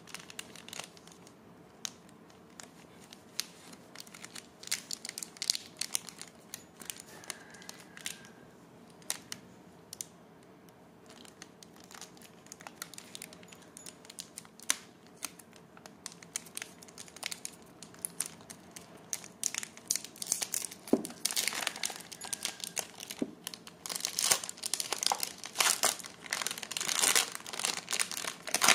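Plastic candy-bar wrapper crinkling and tearing as it is handled and opened by hand, with the foil inner wrap crackling; the crackling grows louder and busier in the last third.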